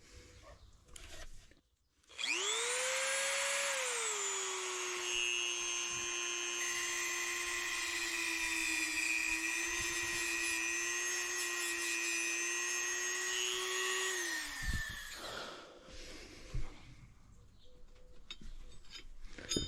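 A small high-speed power tool motor starts with a rising whine. A couple of seconds later its pitch drops and settles lower as it bears on the work, cleaning up a metal part. It runs steadily for about ten seconds, then switches off and winds down quickly, followed by a few faint knocks.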